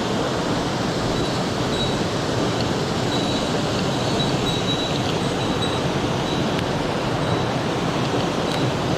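Mountain stream water rushing steadily over rocks, with faint short high-pitched notes sounding now and then above it.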